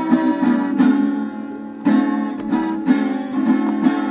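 Strummed guitar playing a steady rhythm, with a short lull about a second in before the strumming picks up again.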